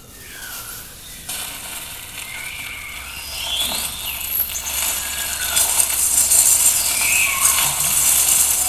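Free-improvised noise music: from a quiet start, a dense scraping, rattling texture comes in about a second in and grows steadily louder, with faint sliding pitches over it.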